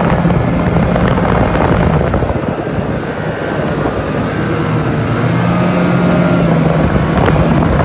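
Snowmobile engine running as the sled travels along the trail at speed, a steady engine note that eases briefly about three seconds in and then picks up again.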